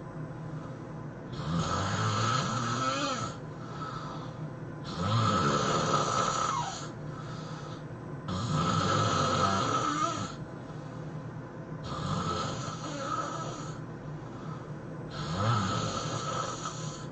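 A man snoring in a steady rhythm: five loud snores about three and a half seconds apart, with quieter breaths between them.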